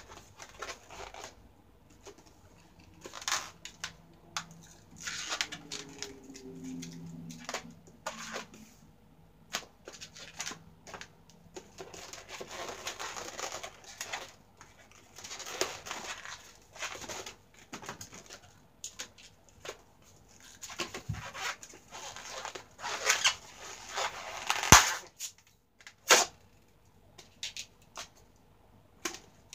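Long latex twisting balloons squeaking and rubbing against each other and against the hands as they are twisted and woven, in irregular short squeaks and longer rubbing squeals, with a few sharp clicks near the end.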